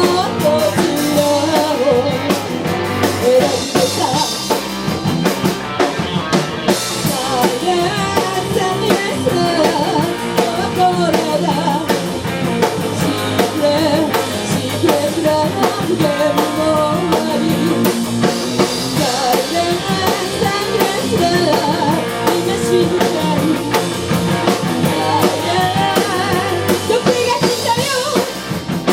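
Rock band playing: drum kit keeping a steady beat under electric guitar, with a singing voice carrying the melody.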